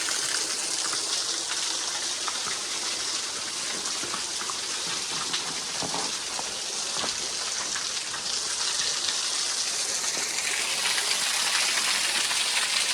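Small waterfall splashing steadily, an even rush of falling water.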